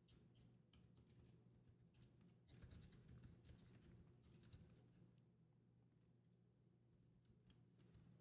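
Faint typing on a computer keyboard: quick clusters of key clicks with pauses between them, over a low steady hum.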